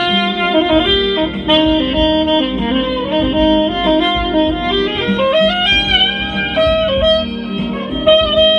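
Soprano saxophone playing a slow melody of stepped and sliding notes, with a rising slide about five seconds in.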